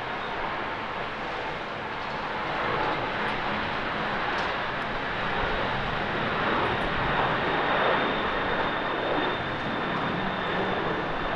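Twin-engine widebody jet airliner's engines at takeoff thrust as it rolls, lifts off and climbs away: a steady jet roar that swells to its loudest about two-thirds of the way through, with a thin high whine near the end.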